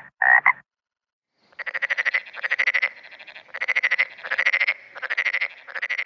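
Frog calls: a short croak right at the start, then from about a second and a half in, six rattling croaks, each a quick train of pulses about half a second long, coming in pairs.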